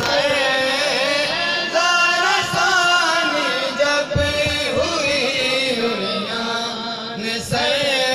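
Men's voices chanting a Muharram lament (nauha) together in a steady sung melody, with a few dull thumps.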